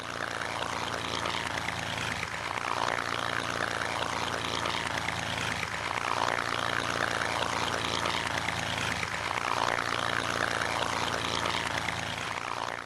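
P-51 Mustang's V-12 piston engine and propeller running steadily, a continuous even drone.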